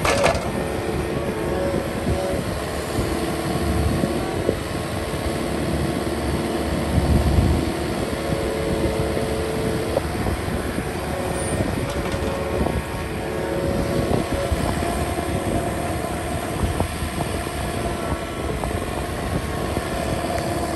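Yanmar ViO mini excavator's diesel engine running under hydraulic load with a steady whine as the boom lifts and swings a bucket of soil. There are a few knocks from the arm and bucket, and a heavier low thump about seven seconds in.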